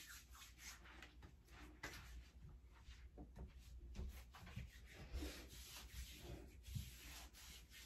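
Very faint rubbing of hands over skin as body lotion is spread, then a few light knocks and rustles of items handled at a bathroom counter.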